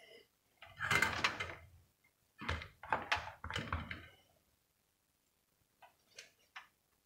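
Handling noises on a wooden table: a few knocks and rustles as the soldering iron, its cord and the solder are picked up and moved, then a few faint light clicks near the end.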